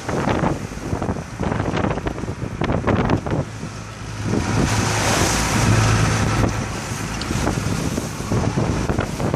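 Strong wind buffeting the microphone in rough, wavy water, with irregular splashing and slapping hits and a swell of rushing noise about halfway through.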